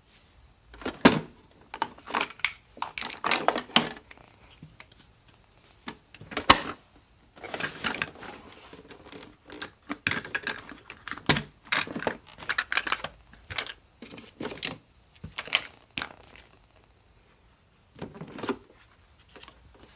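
Plastic parts of a Sebo Airbelt C3.1 canister vacuum being handled and taken apart: irregular clicks, knocks and scraping. Sharper knocks stand out about a second in, around six and a half seconds, and around eleven seconds.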